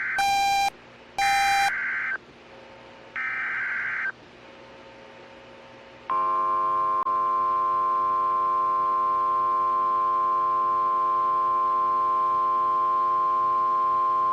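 Emergency Alert System alert tones: three short buzzy SAME header data bursts in the first four seconds, then, about six seconds in, a long steady attention tone begins, with a brief break about a second after it starts.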